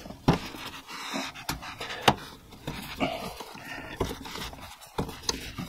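Supply line's coupling nut being unscrewed by hand from the toilet fill valve's threaded shank: scattered sharp clicks and rubbing of plastic fittings, with panting-like breathing between them.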